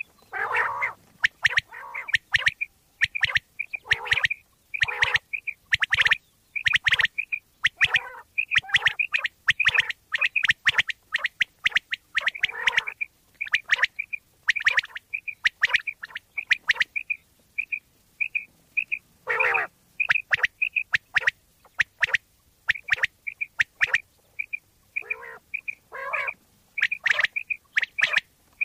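Common quail calling over and over: quick runs of short, clear whistled notes, mixed with harsher, rasping calls, in bouts with short pauses between them.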